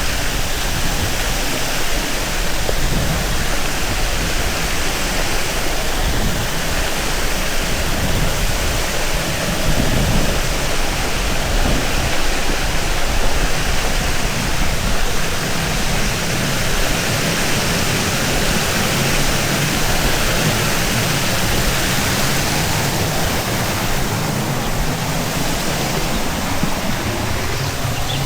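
Rushing water of a stream, a loud steady hiss without breaks.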